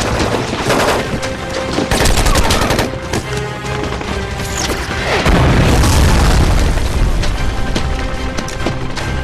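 Battle sound effects from a film: rapid bursts of automatic gunfire, then a heavy, deep explosion blast about five seconds in that is the loudest part. Dramatic film score music plays underneath.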